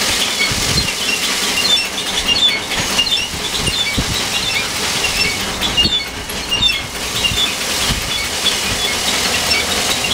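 Small grain thresher running while bundles of cereal heads are held in its hopper: the spinning drum beats and strips the heads, giving a steady rushing noise scattered with many quick ticks of kernels and chaff hitting the sheet-metal housing.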